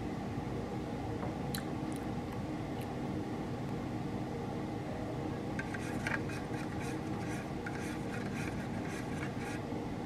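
Steady low hum of the hospital room. From about halfway through, a few seconds of small clicks and crinkles come from handling the plastic orange-juice cup.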